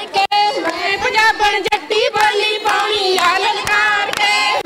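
Women's voices singing Punjabi boliyan, the folk couplets of giddha, in high bending notes, with hand claps struck among the singing.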